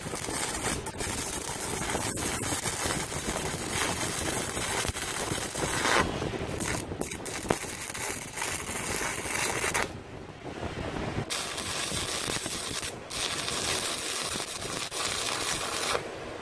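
Electric arc welding of a square steel-tube bracket: the welding arc runs in several stretches of dense noise, breaking off for over a second near the middle and briefly a few other times.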